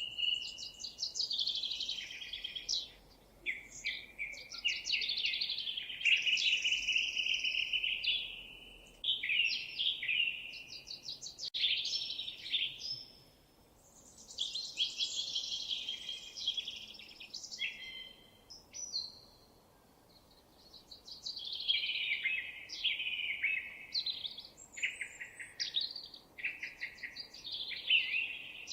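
Songbirds singing in long, varied phrases of warbles, chirps and rapid trills, with brief pauses about a third of the way in and again past the middle.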